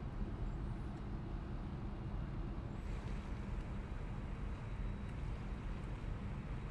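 Steady low drone of a tugboat's diesel engine heard from on board, with a hiss of wind and water over it that grows a little about three seconds in.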